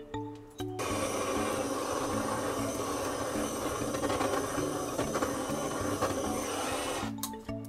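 Handheld kitchen blowtorch burning with a steady hiss as its flame is played over the surface of cake batter to pop the air bubbles. It starts about a second in and cuts off shortly before the end, with background music underneath.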